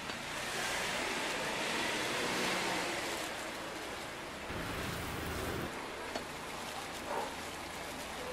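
Oil sizzling and crackling on a hot griddle as hotteok fry, with a brief low rumble about halfway through.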